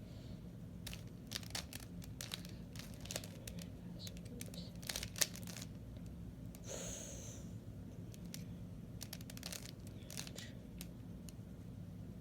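Plastic 3x3 Rubik's Cube being turned by hand: irregular clicks and clacks as its layers twist, with a brief hiss about seven seconds in.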